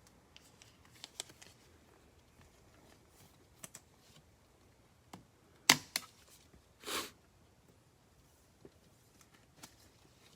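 Trading cards being handled at a table: scattered light clicks and taps, a sharp tap about halfway through followed by a second, then a brief swish of card or wrapper.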